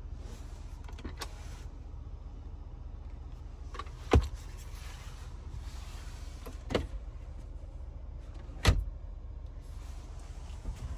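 Electric motors and latches of a Bentley Bentayga being worked, a motor running for a couple of seconds between sharp clicks and knocks, over a steady low rumble. The loudest knocks come about four seconds in and near the ninth second.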